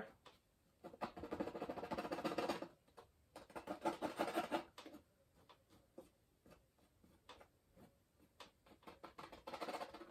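Palette knife scraping and scratching into wet oil paint on a stretched canvas: three spells of scratchy strokes, the longest about a second in, with light ticks and taps in the pauses between them.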